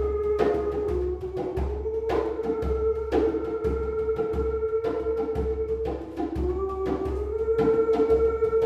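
Hand drum beaten in a steady beat of about two strokes a second, under a long held melodic note that dips and slides back up in pitch a couple of times.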